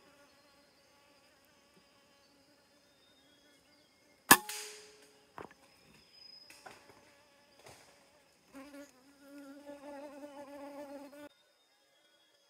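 A single sharp shot from a PCP air rifle about four seconds in, with a short ringing tail, followed by a few lighter clicks. From about eight and a half seconds an insect buzzes close to the microphone for nearly three seconds, over a faint steady high insect whine.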